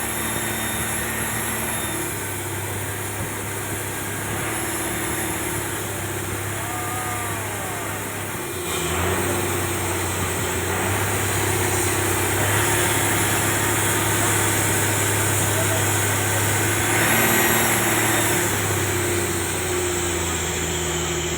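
An engine running steadily with a low hum, getting louder and a little higher about nine seconds in.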